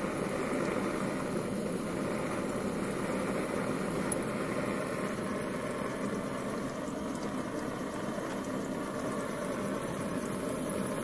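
Propane-fired, water-cooled Stirling engine generator running steadily with its burner turned down to slow it: an even, rhythmless mechanical noise from the engine, its flame and its small water pump.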